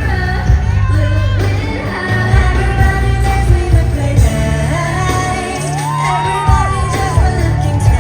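Live pop music played loud through a concert sound system: female vocals singing in gliding pitches over a heavy bass beat.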